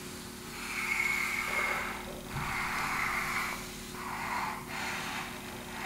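Pen scratching across paper in a run of long drawing strokes, about four of them a second or so each, some with a thin squeak from the nib.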